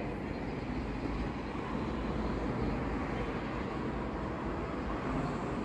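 Distant fireworks over the city heard as a steady low rumble, with no separate bangs standing out.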